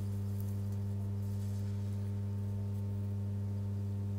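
Steady mains-frequency hum with overtones from the high-current test supply while it drives about 32 amps through an overloaded flex that is melting and smoking.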